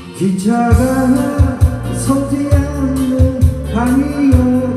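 A man singing a Korean pop ballad into a microphone over a recorded backing track with bass, guitar and a steady drum beat; his voice comes in just after the start and holds long notes.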